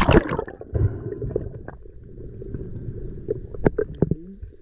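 Water rushing over the camera as the freediver goes under, then the muffled low rumble of the sea heard underwater, with bubbles gurgling and a few sharp clicks.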